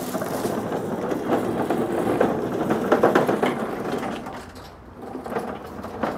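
Hand pallet truck loaded with heavy checker-plate metal cover plates rolling over concrete paving stones. It makes a continuous clattering rattle of many small knocks, which eases briefly a little before the end and then picks up again.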